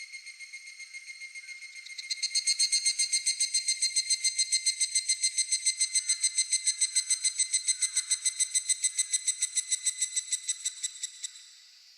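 Higurashi (evening cicada) calls: a high, ringing pulsed trill, about six or seven pulses a second. A fainter call runs at first, a much louder one starts about two seconds in, and it fades out shortly before the end.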